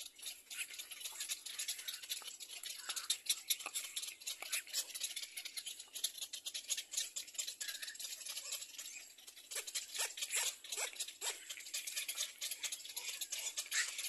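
Dense, fast clicking and crackling chatter from birds at a nesting colony, with a few short falling chirps about ten seconds in.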